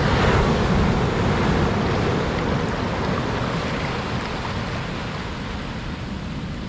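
Sea waves breaking on a beach: a wave crashes at the start and its wash slowly dies away over the following seconds.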